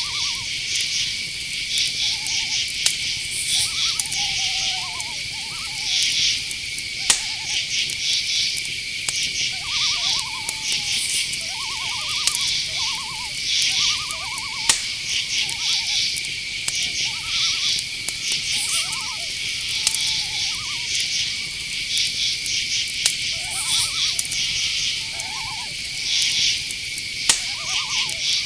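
Night-forest ambience: crickets keep up a steady high trill with pulsed chirping above it. Short calls around the middle of the range repeat every second or so, some falling in pitch. A few sharp clicks stand out, about four of them.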